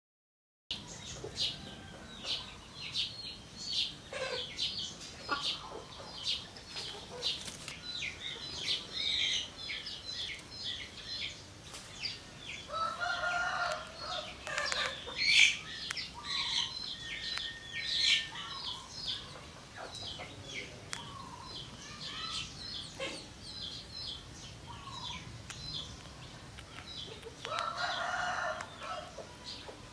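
Many small birds chirping in quick short calls, with a rooster crowing twice, about halfway through and again near the end.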